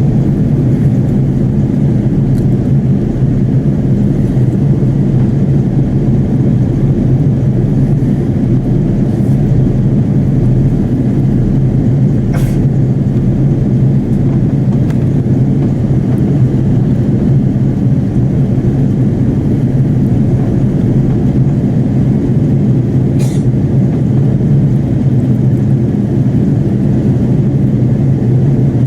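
Steady in-flight cabin drone of an Airbus A330-300 airliner: engine and airflow noise heard from inside the passenger cabin, even and unchanging.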